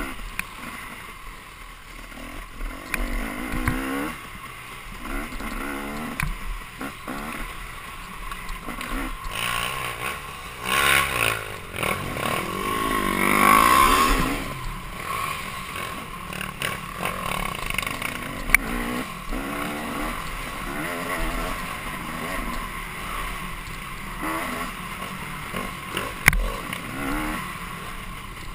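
Dirt bike engine revving up and down under riding, its pitch rising and falling with the throttle, loudest for a couple of seconds about halfway through. A few sharp knocks cut in.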